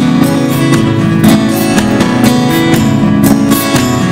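Background music: a strummed guitar playing in a steady rhythm, loud throughout.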